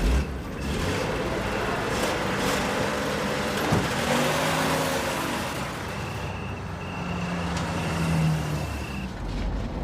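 A car engine running as the car drives off, its noise swelling to a peak around the middle and then easing.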